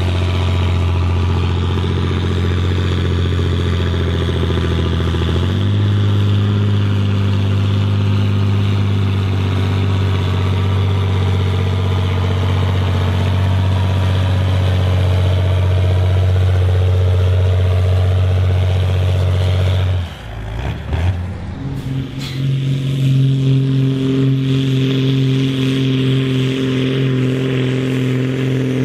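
John Deere 4640 tractor's six-cylinder diesel engine running under heavy load while pulling a weight sled, its pitch stepping up about five seconds in and then holding steady. About two-thirds through the sound breaks off briefly, and the engine then comes back at a higher, steady pitch.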